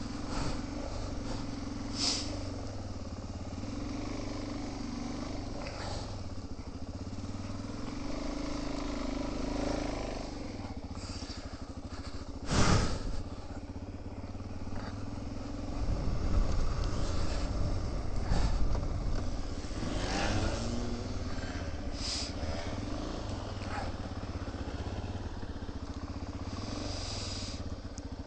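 Trail motorcycle engine running under way, heard from the rider's own camera, with occasional short knocks and one loud sharp knock about halfway through; the engine pitch rises as it revs up about two-thirds of the way in.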